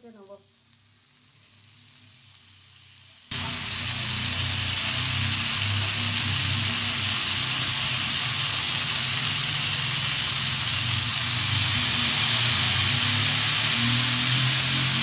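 Skewered, butter-basted chicken kebabs sizzling on a hot tawa over medium heat. The sizzle starts suddenly about three seconds in and grows a little louder later, with a steady low hum underneath.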